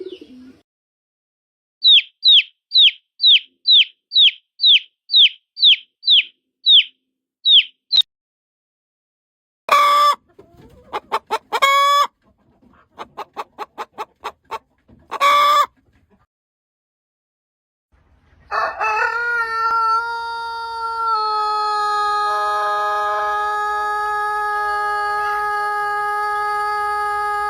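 A string of chicken sound effects separated by silent gaps: about a dozen quick high peeps, then a few loud squawks and clucks, then one long crow-like call held on a steady pitch for about nine seconds.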